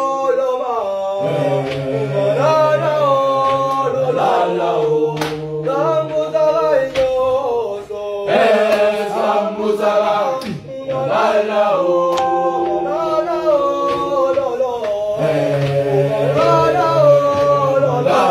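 Boys' choir singing a gwijo, a South African school chant, unaccompanied in several-part harmony over a low held bass line, the chords shifting every few seconds.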